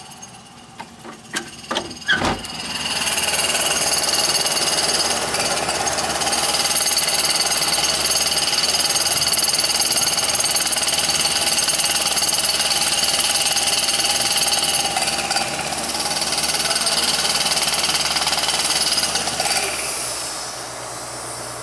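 A few sharp knocks, then about two and a half seconds in a work truck's machinery starts up and runs loud and steady, with a high whine over a rough mechanical clatter, easing off near the end.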